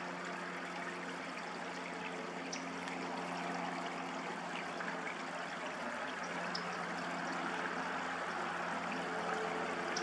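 Steady rushing background noise under a faint steady low hum, with a few faint, short, high-pitched ticks.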